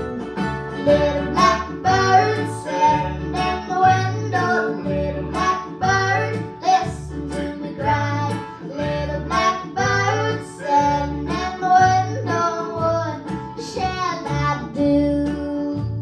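Live acoustic string band playing a song: upright bass plucking a steady beat about twice a second under mandolin and guitar, with drum strokes keeping time.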